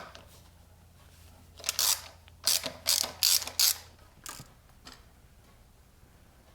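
Ratchet wrench clicking in about six quick bursts as it works loose the small Whitworth screw clamping a Vincent carburettor to its manifold, followed by a few faint clicks.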